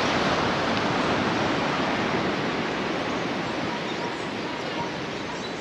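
Ocean surf on a beach: a steady rushing noise that eases a little over the seconds.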